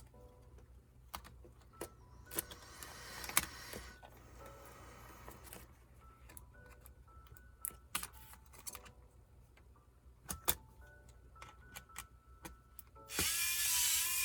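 Small clicks and taps of laptop parts and tools being handled during disassembly, over quiet background music. Near the end comes a loud whirring burst lasting about a second and a half.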